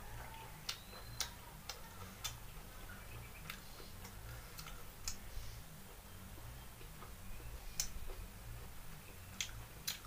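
Scattered sharp clicks of eating utensils against a metal bowl and tray, at irregular intervals, over a low background hum.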